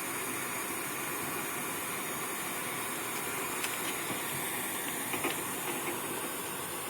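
Gas torch flame hissing steadily as it heats a soldered copper pipe joint to melt the solder, with a few faint clicks partway through.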